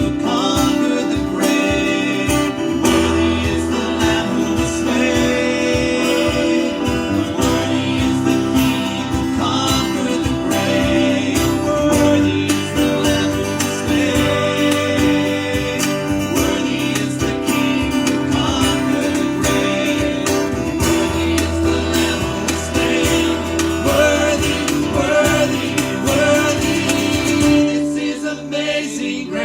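Worship song played on guitar with singing.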